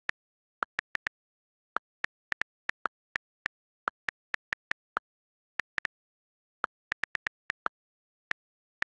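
iPad on-screen keyboard key clicks as text is typed: short, sharp ticks at an uneven typing pace of a few per second, with a few slightly lower-pitched clicks among them.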